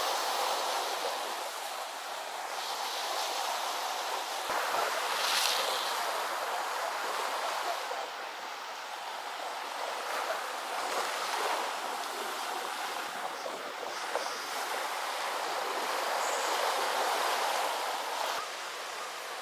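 Sea surf breaking and washing over a rocky shore, swelling and easing every few seconds.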